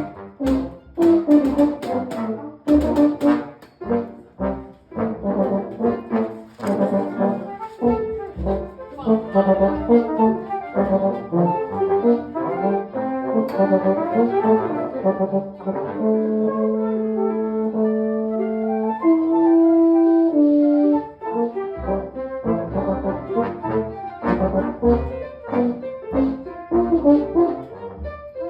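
Brass ensemble playing a rhythmic, heavily accented passage with sharp punctuating hits. Around the middle it settles into long held chords, then the rhythmic playing resumes near the end.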